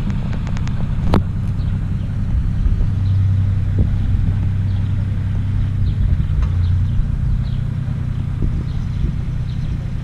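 Engine running with a steady low rumble, a little stronger in the middle, with a few sharp clicks in the first second or so.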